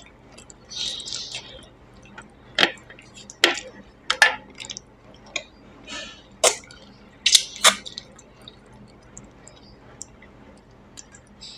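Close-up eating sounds of a person eating fish curry by hand: irregular wet lip smacks and mouth clicks while chewing and sucking at the fish, with a short hiss about a second in.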